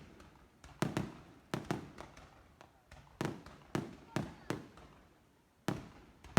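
Fireworks shells bursting in the sky: a dozen or so sharp booms at uneven spacing, each trailing off in a rolling echo, with a lull of about a second near the end.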